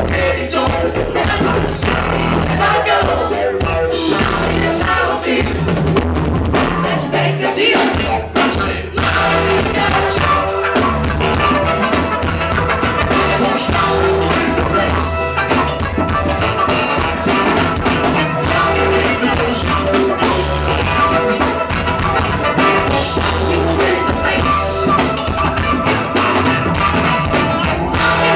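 Funk band playing live and loud: drum kit, bass, electric guitar, keyboards and saxophones, with a woman singing over them. The groove briefly drops back about eight seconds in.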